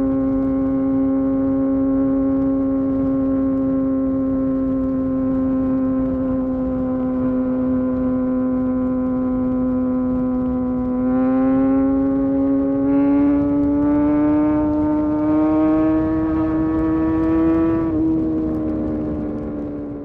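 Kawasaki Ninja superbike engine running at steady highway cruise, then the throttle opens about halfway through and the engine note climbs with pulses of extra rasp. The pitch drops suddenly near the end, and the sound fades out. A steady rush of wind runs underneath.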